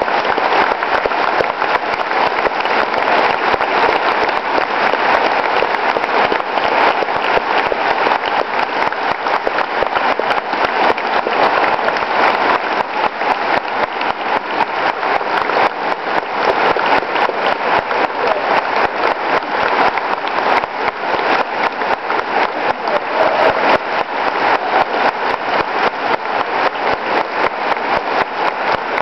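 A large audience applauding, the dense clapping of many hands going on steadily without a break.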